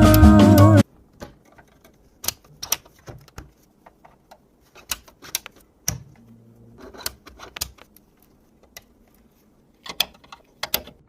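Background music cutting off about a second in, followed by scattered light clicks and taps at irregular intervals, some in quick pairs, as of small hard computer parts being handled.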